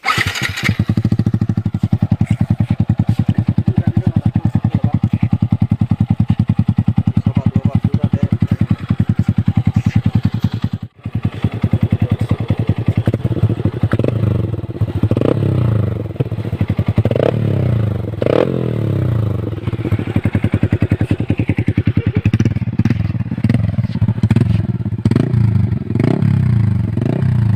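Yamaha MT-15's 155 cc single-cylinder engine through a loud aftermarket full-system exhaust: a steady, fast-pulsing idle, then from about halfway on a series of throttle blips that rev it up and let it fall back.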